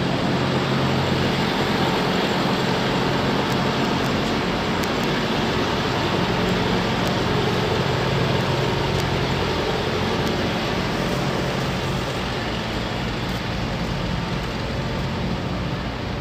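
Steady engine drone with low, even humming tones under a constant rushing noise, unchanging throughout.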